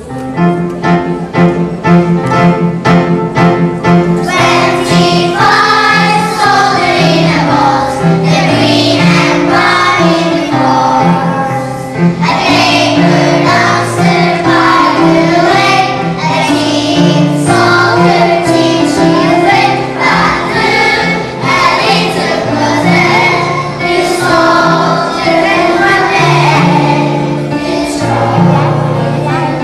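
A song with a steady beat: about four seconds of instrumental introduction, then a group of voices singing over it.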